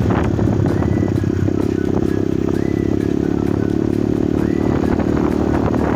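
Motorcycle engine running steadily while riding, with a few short high chirps over it.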